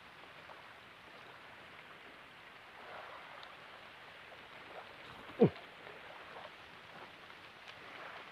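Steady wash of shallow water lapping at a sandy shore. About five and a half seconds in, a single short, loud sound sweeps quickly downward in pitch.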